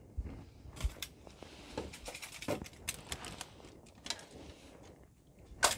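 Handling noise of a steel gauntlet being moved and set down on a wooden bench: scattered light knocks and clicks over clothing rustle, with a sharper click near the end.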